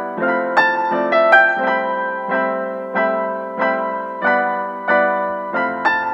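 Background piano music, with gently struck notes and chords sustaining and a new one coming roughly every half second.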